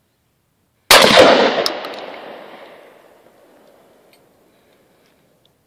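A single 12-gauge shotgun shot from an Escort Defense shotgun, a sharp blast about a second in whose echo dies away over about three seconds.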